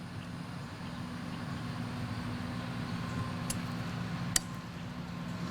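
A steady low motor hum, with two faint clicks in its second half.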